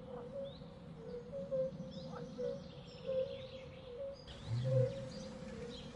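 Forest ambience of birds chirping and calling, with a short low growl about four and a half seconds in.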